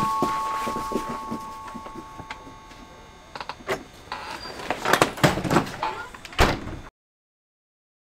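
A two-note doorbell chime ringing out and fading away over the first couple of seconds, followed by a few sharp knocks and clatters of a door. Near the end the sound cuts off abruptly to dead silence.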